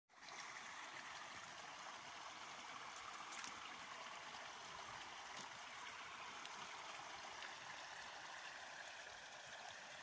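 Small stream's water trickling steadily at a beaver dam of sticks and mud.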